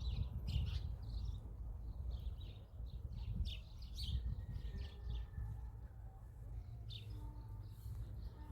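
Small birds chirping repeatedly in short calls, over a steady low rumble.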